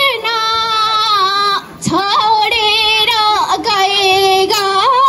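A schoolgirl singing a song solo into a handheld microphone, holding long sustained notes with short breaths between phrases.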